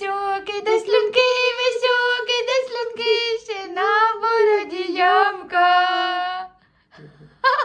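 A woman singing wordlessly in a high voice, a string of long held notes that waver and glide. The singing stops about a second before the end.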